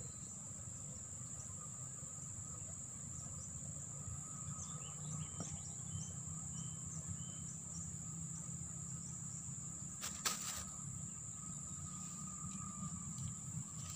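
Steady high-pitched drone of insects over the low rush of a fast-flowing flooded river, with a few faint short chirps in the middle and a single short knock about ten seconds in.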